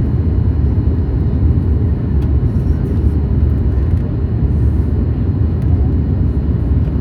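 Boeing 737 MAX 8 in flight, heard from inside the cabin: a steady low rumble of engine and airflow noise that stays even throughout.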